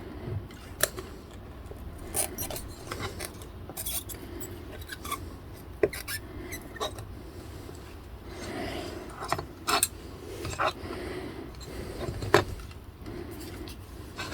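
Handling noise: scattered sharp clicks and taps of small hard objects over a low steady hum, with stretches of rubbing and scraping. The loudest taps fall about a second in, near the middle and near the end.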